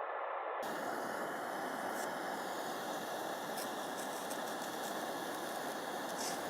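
Wood campfire burning: a steady hiss with a few faint crackling pops.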